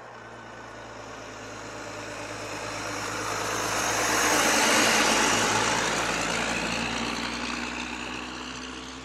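Fully loaded logging truck with its diesel engine driving past: growing louder as it approaches, loudest as it goes by about halfway through, then fading away.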